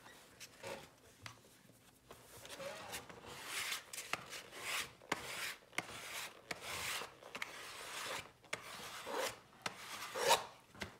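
Hand sanding block rubbing along the edge of a leather insole on a shoe last, a run of irregular rasping strokes about one or two a second, cleaning the insole edge up to the last.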